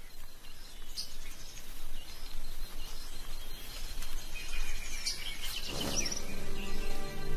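Forest ambience with scattered high bird chirps and a thin, slightly falling whistled call. Soft music with held notes comes in near the end.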